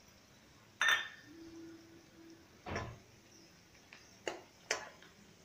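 Metal ladle knocking against a metal wok while stirring: a sharp ringing clink about a second in, a duller knock near three seconds, and two quick ticks near the end.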